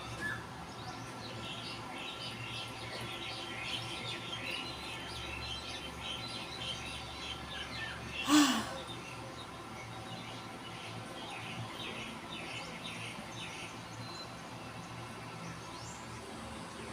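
Many small birds chirping, a continuous chatter of short high calls over a low steady hum. One brief, louder sound stands out about halfway through.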